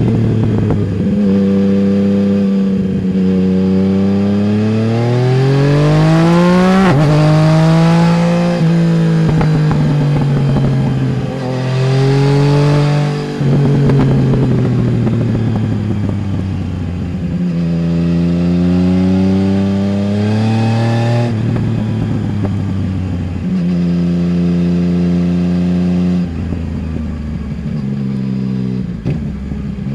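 Yamaha Tracer 900 GT's 847 cc inline-three engine through a Roads Italia full exhaust with dB-killer, heard from under the passenger seat while riding. It pulls hard with the pitch rising steeply, drops back, then rises again in shorter and longer climbs, with steps in pitch at shifts or throttle changes, and ends in steadier running.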